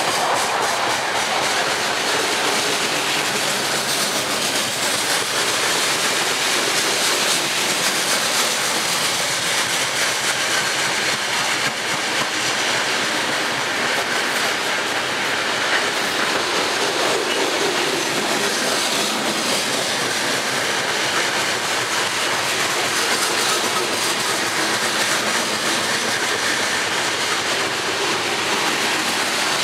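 Loaded coal hopper cars of a freight train rolling past, with the steady noise of steel wheels running over the rails.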